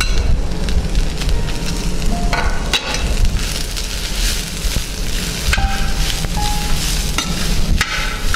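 Steel ladle stirring and scraping grated coconut, coriander leaves and dried red chillies around an iron kadai while the oil sizzles, with occasional clinks of metal on metal.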